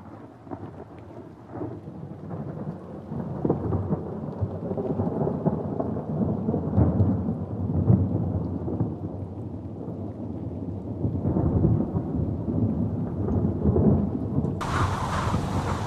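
Thunder rumbling in long, rolling swells that grow louder after the first few seconds. Near the end the sound switches abruptly to a steady hiss.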